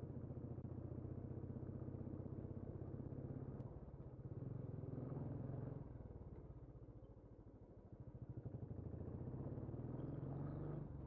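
Motorcycle engine running under way, picked up by a helmet-mounted camera. It eases off about six seconds in and picks up again near eight seconds.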